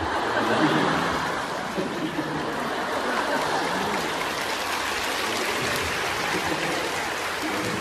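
Arena audience applauding steadily, with scattered voices in the crowd.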